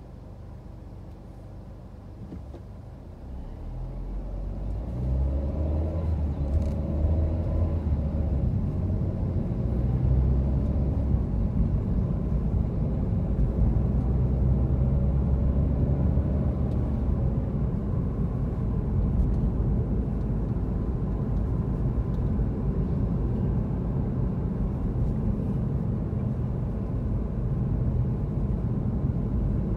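Car interior noise: quiet while the car is stopped, then from about four seconds in a low rumble of engine and tyres builds as it pulls away, with a rising engine note while it accelerates. The rumble then stays steady as the car drives on.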